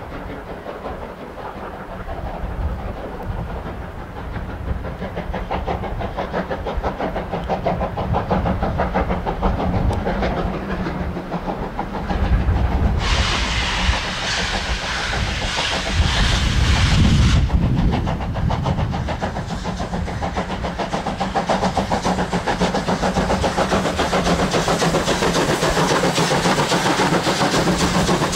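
Class 41 2-8-2 steam locomotive 41 1150 pulling a train away, its exhaust chuffing in a steady rhythm that grows louder as it comes close and passes. A loud hiss of escaping steam starts abruptly about thirteen seconds in and cuts off about four seconds later, and gusts of wind rumble on the microphone.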